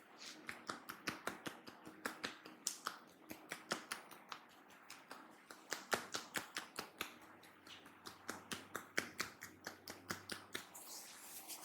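Quick, sharp snapping taps from a masseur's hands working on the head, about four to five a second, in runs broken by short pauses.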